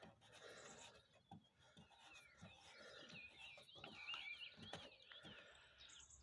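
Faint bird song: a bird repeating a quick falling-and-rising chirp over and over, with a few faint short knocks.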